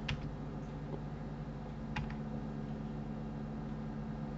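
Computer keyboard keys clicking: one click just after the start and a quick pair about two seconds in, over a steady low electrical hum.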